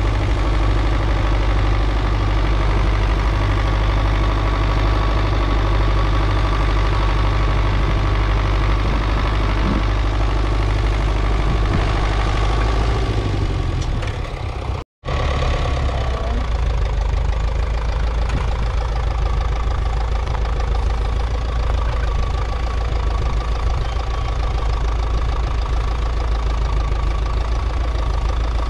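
Four-cylinder diesel tractor engine running steadily under load while pulling a plough. The sound cuts out for an instant about halfway through.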